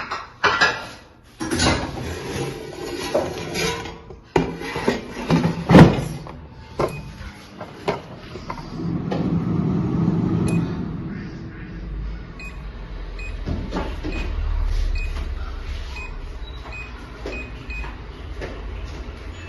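Knocks and clatters of kitchen handling for about the first seven seconds, then a low steady hum.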